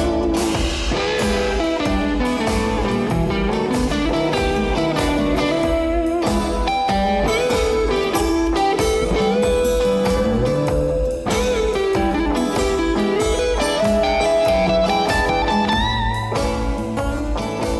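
Background music: a guitar plays a bluesy melody with sliding notes over a steady beat.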